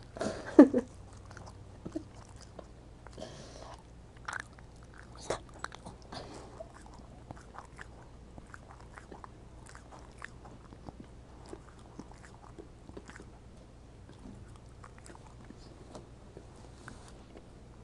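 American Eskimo dog working its mouth: a short throaty sound with a falling pitch about half a second in, then irregular soft smacks and clicks of lips and tongue, as of a dog trying to clear a fur ball.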